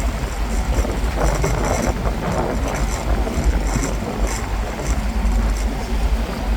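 Cruise boat under way: a low, steady engine rumble with wind noise on the microphone.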